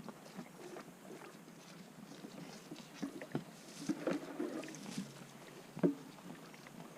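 Cattle eating and moving about, with irregular knocks and clatters over a rustling background; the sharpest knock comes about six seconds in.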